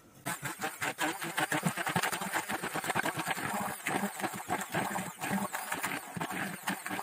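Electric immersion blender puréeing boiled carrot chunks in a metal saucepan. The motor starts right at the beginning and runs on with a fast, rattling chop as the blade breaks up the pieces.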